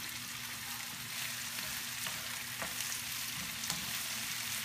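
Diced eggplant and peppers sizzling in olive oil in a frying pan, stirred with a plastic spoon, with a few light taps of the spoon against the pan.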